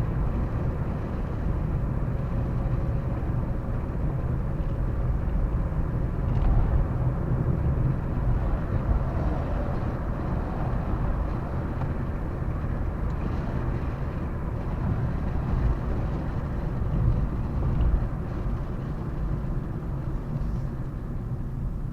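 A car driving, heard from inside: a steady low rumble of road and engine noise.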